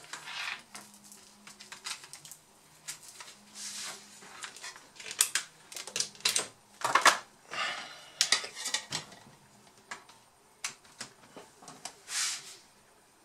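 Handling noises: scattered clicks, knocks and rustles as a laptop's power adapter cable is plugged into a wall socket and into the laptop.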